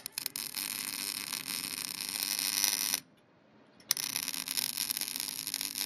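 MIG welding arc crackling as a weld is laid on a bicycle fork, in two runs of about three seconds each with a second's break between them. The even crackle is the frying-bacon sound that shows the welder is set right.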